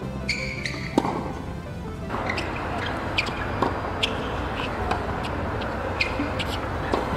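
Tennis balls struck by racket during practice rallies: a sharp hit about a second in, another in the middle and one near the end, with a short squeak of shoes on the hard court just before the first. From about two seconds in, outdoor crowd and stadium ambience fills the background, and quiet background music with a steady low bass runs throughout.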